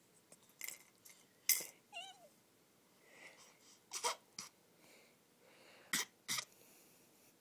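A baby's short breathy huffs of laughter, about six sharp bursts spread out, with a brief warbling coo about two seconds in.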